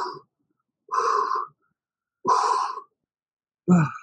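A man's forceful exhalations, one with each butterfly crunch, about every second and a quarter. The last one, near the end, is voiced like a grunt.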